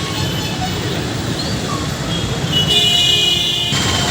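Road traffic noise, with a vehicle horn sounding once for about a second late on.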